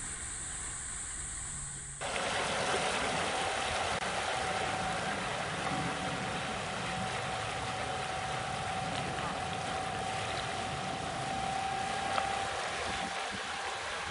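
Small boat under way on an outboard motor: a steady rush of water and wind with a motor whine held at one pitch, starting about two seconds in after quieter hiss.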